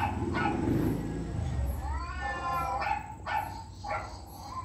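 A dog whining in high, drawn-out cries, with one rising in pitch about two seconds in, then a quick series of short yips near the end. A low rumble runs under the first second or two.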